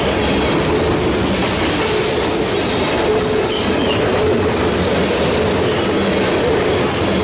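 Covered hopper cars of a freight train rolling past at speed: a loud, steady rumble of steel wheels on rail with a light clickety-clack, and a thin steady tone from the wheels that fades in and out.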